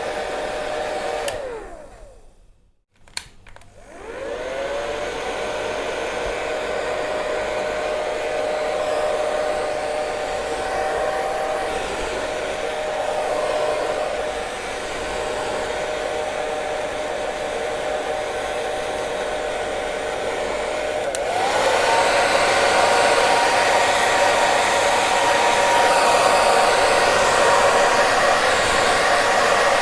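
Electric hair dryer blowing with a steady whine. It winds down and cuts out about a second and a half in, clicks, and spins back up a second or two later. Some twenty seconds in it steps up to a louder, higher-pitched whine.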